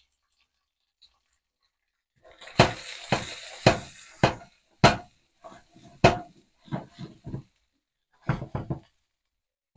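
A spatula knocking and scraping against a metal frying pan while whitebait and spring onions are stir-fried. About a dozen sharp, irregular knocks begin about two seconds in, the first few over a hiss.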